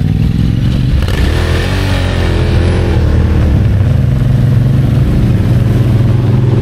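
Quad bike (ATV) engines running close by as a group rides in. Around two seconds in one engine's pitch climbs and drops, and from about four seconds in the engines settle to a steady idle.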